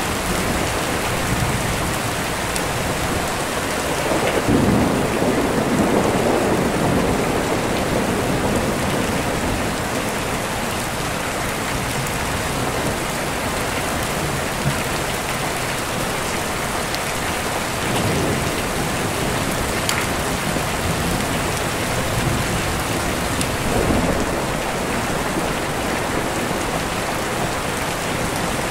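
Steady rain with deep rolling thunder: one long rumble about five seconds in, and two shorter rumbles later.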